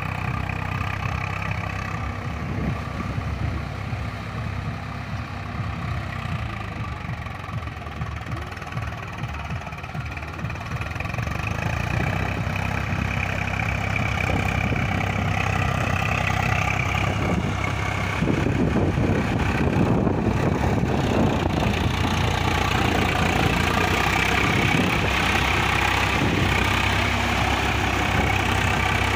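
Swaraj 744 XT tractor's three-cylinder diesel engine running steadily under load as it pulls a cultivator through flooded paddy mud on cage wheels. It gets louder about halfway through.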